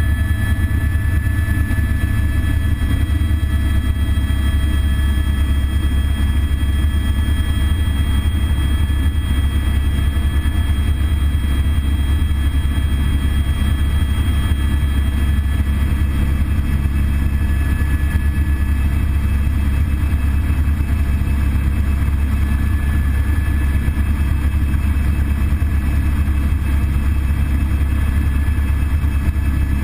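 Eurocopter AS350 B3 single-engine turbine helicopter in steady flight, heard inside the cockpit: a constant deep rotor and engine drone with a thin, steady high whine over it.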